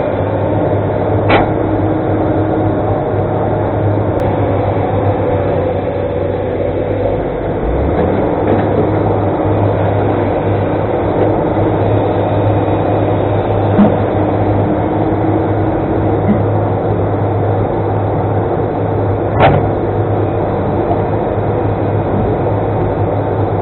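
Excavator's diesel engine running steadily with a constant low hum, with two sharp knocks, one about a second and a half in and one near the end.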